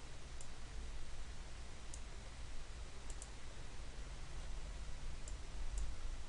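Computer mouse clicking now and then, about six light clicks spread over a few seconds, over a steady low hum and hiss.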